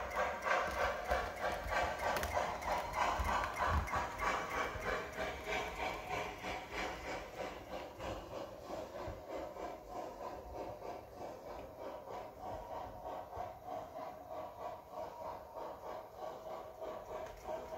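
Model steam locomotive chuffing from a TCS 501 steam sound decoder played through the tender's small speaker: an even, quick beat that slowly grows fainter.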